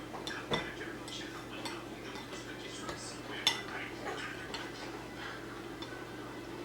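Kitchen utensils clinking and scraping against dishes while food is prepared: scattered light clinks, the sharpest about half a second in and about three and a half seconds in, over a steady low hum.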